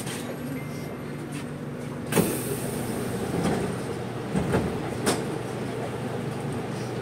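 Inside a C751B metro train car standing still: a steady low electrical hum from the train, with a sharp clunk about two seconds in followed by a brief hiss, and a few smaller knocks around four and five seconds in.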